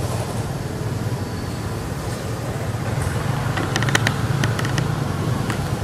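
Steady low rumble of a motor vehicle engine running nearby. A quick run of sharp clicks comes a little past halfway.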